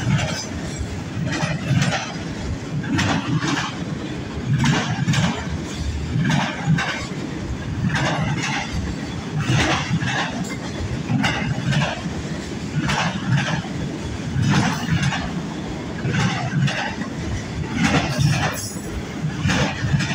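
Freight train cars rolling past, their wheels clacking over rail joints in quick repeating strikes over a steady low rumble.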